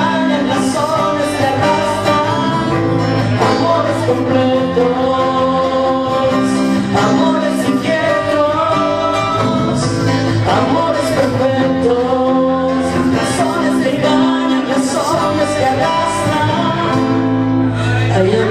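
A live acoustic band playing: a male singer singing over strummed acoustic guitars and a bass guitar.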